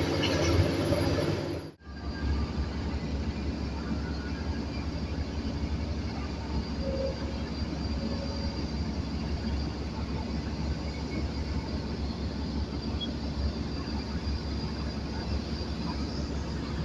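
Diesel engines of heavy earthmoving machines running. The sound cuts out suddenly and briefly a couple of seconds in, then a steady low rumble carries on.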